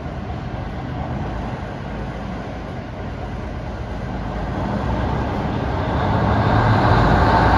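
GE center-cab diesel switcher locomotive running as it creeps forward, its diesel engines giving a steady low rumble that grows louder over the last few seconds.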